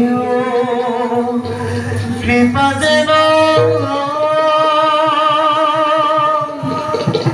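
Bhaona devotional singing: a voice holds long, wavering notes, shifting to a higher note about two and a half seconds in, over instrumental accompaniment.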